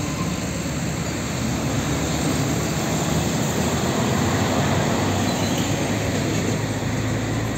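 Heavy diesel tractor-trailer trucks passing close at low speed: engine running, with tyre noise and the rattle of an empty skeletal container trailer. A steadier low engine hum from the following Hino tractor unit comes in about two-thirds of the way through.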